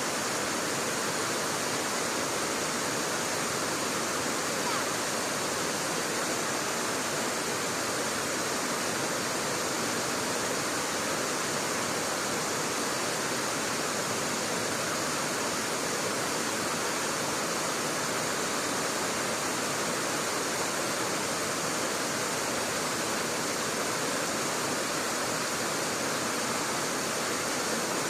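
River water rushing steadily, a constant unbroken noise.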